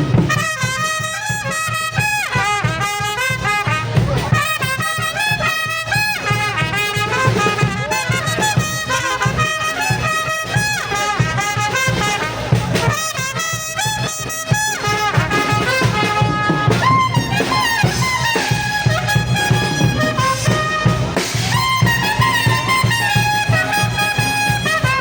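Brass band playing, with trumpets leading a busy melody over a steady low pulse.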